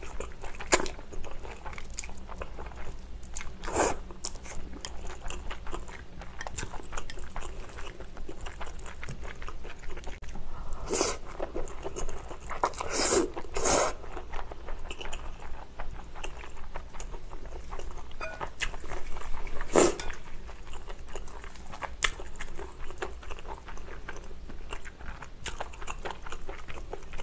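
Close-up eating sounds of spicy cold noodles (naengmyeon): wet chewing, slurping and mouth clicks, with a few louder sounds near the middle.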